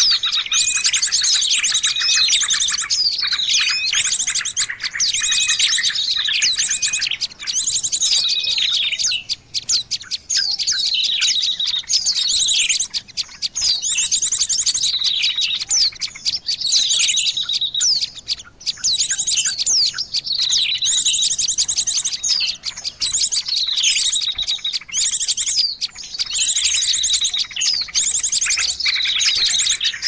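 A dense, noisy mix of many small songbirds chirping and trilling at once: quick high chirps, repeated falling whistles and rapid buzzy trills overlapping without a break. It is a 'burung ribut' bird-lure track, a busy chorus of songbirds used to draw wild birds in.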